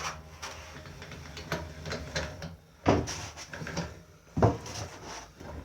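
Projector screen being lowered, with a steady low hum that stops about three seconds in. It is followed by a few loud knocks and thumps.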